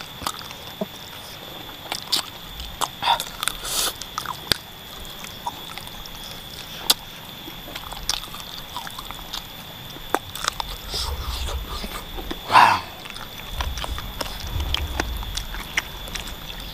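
A person eating spicy chicken feet close to the microphone: scattered wet clicks, lip smacks and chewing as the soft bones and skin are bitten and sucked. A steady high tone hums underneath.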